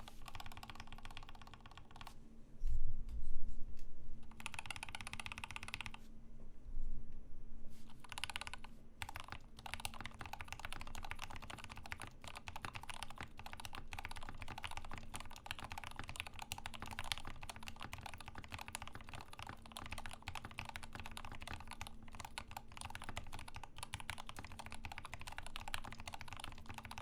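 Typing sound test on a Rama M65-B custom mechanical keyboard built with lubed Gateron Ink switches (Krytox 205g0), a brass plate, mute mount and internal dampener, under Heavy Industry keycaps. A few separate sounds and a louder low thump about three seconds in, then fast continuous typing from about eight seconds on.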